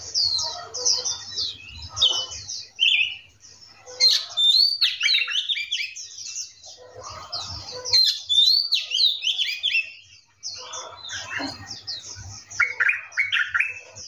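A mixed chorus of several birds: fast runs of high, thin chirps overlapping with varied whistled phrases whose notes sweep down in pitch, coming and going in bursts.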